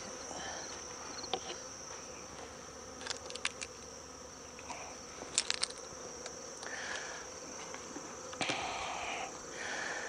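Honeybees buzzing steadily over an open hive, with a few sharp clicks and a knock from the hive tool and wooden frames being worked, about three, five and eight seconds in.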